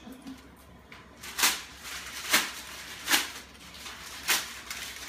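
A brown paper bag being torn apart by hand: four short, sharp rips about a second apart.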